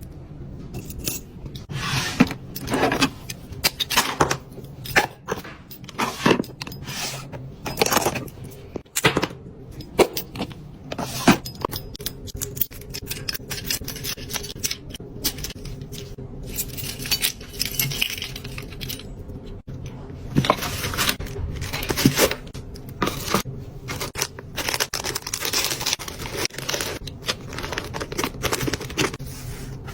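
Fingernails tapping fast and hard on packaging and products, with quick irregular clicks mixed with scratching and scraping.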